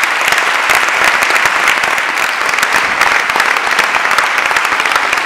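Audience applauding: many people clapping together in a dense, steady patter of hand claps.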